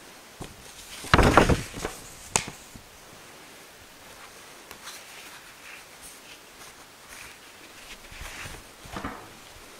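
Priest handling the chalice and altar cloths during the preparation of the gifts: a short burst of rustling and small clicks about a second in, a sharp click just after, then light scattered handling ticks and another brief rustle near the end.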